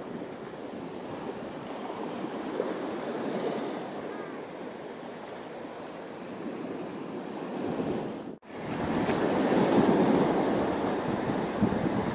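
Sea water washing and sloshing in a steady rush, with a sudden brief break about eight seconds in, after which the water is louder.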